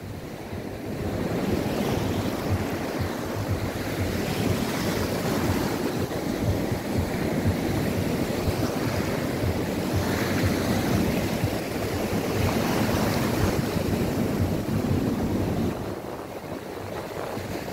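Sea waves breaking and washing up the shore, a continuous surf wash, with wind buffeting the microphone. It grows louder about a second in and eases briefly near the end.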